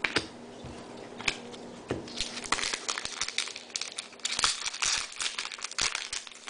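Foil trading-card pack wrapper and cards being handled: a few light clicks at first, then dense crinkling from about two seconds in as the wrapper is worked open.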